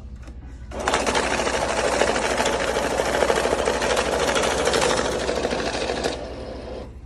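A machine rattling rapidly and evenly, starting about a second in and stopping about a second before the end, over a low steady hum.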